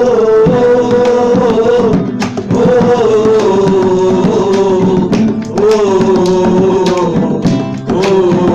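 Music: Middle Eastern–style song with hand-drum percussion and a melody sung or played in long held phrases, each sagging slightly in pitch at its end.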